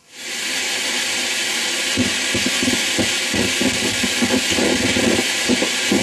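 Steady radio hiss from the Bang & Olufsen Beocenter 7700's tuner, coming in abruptly and holding even, with faint programme sound under it from about two seconds in: the set is between stations or on a weak signal.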